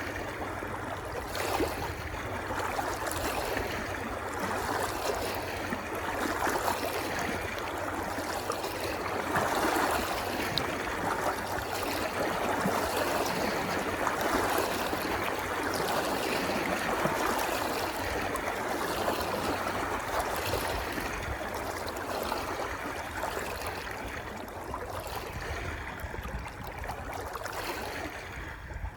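Running water flowing steadily, a little louder through the middle.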